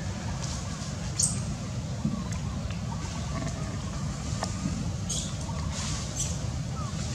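Steady low rumble of outdoor background noise, with a few short, high squeaks about a second in and twice near the end.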